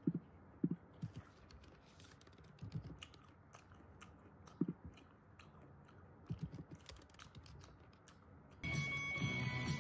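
Close-up chewing and crunching of food, a few short crunches spread unevenly over several seconds. Background music comes in near the end.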